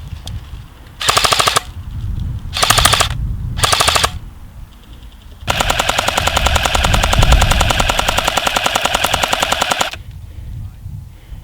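Airsoft electric gun firing on full auto: three short bursts, then one long burst of about four seconds that cuts off suddenly.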